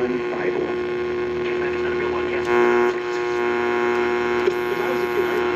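An Emerson portable CD boombox radio's speaker giving a steady buzzing hum with a constant tone, as it is tuned off-station during a band scan. About two and a half seconds in, a harsher buzz swells briefly.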